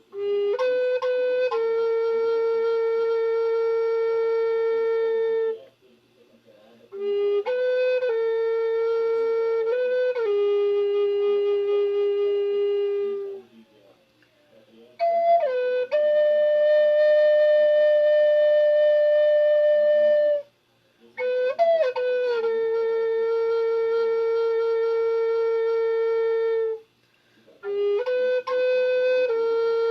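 Siyotanka, a Native American-style flute, playing a slow improvised melody of about five long held notes. Each phrase opens with a few quick grace notes before settling on the sustained note, with short pauses for breath between phrases; the middle phrase sits a little higher.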